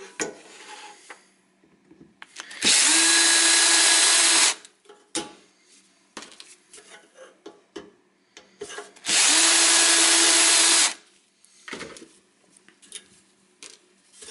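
Power screwdriver running at a steady pitch in two spells of about two seconds each, backing out the screws of a metal mounting bracket on a car engine computer's case. Light clicks and taps of handling the parts come in between.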